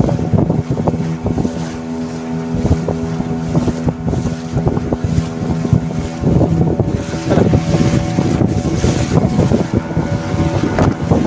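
Boat engine running steadily under way, with wind buffeting the microphone.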